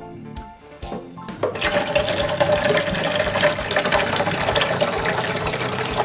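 Water from a kitchen tap running into a coffee machine's plastic water tank, starting about a second and a half in as a steady rushing pour.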